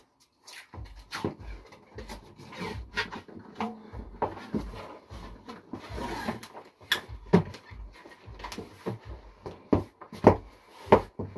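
Cardboard shipping box being handled by hand, its flaps folded and pressed down, giving irregular knocks, taps and rustles of cardboard.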